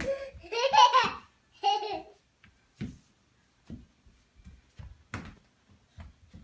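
A young child babbling and laughing in two short bursts during the first two seconds, then a few soft knocks.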